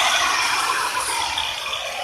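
Handheld cutter's motor and blade spinning down, with a rattling noise fading steadily.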